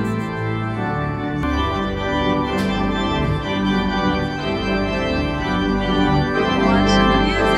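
Pipe organ playing held chords that change every second or two.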